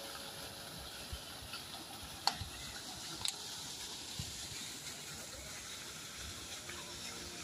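Steady outdoor hiss of ambient noise, with two short, sharp chirp-like sounds about two and three seconds in.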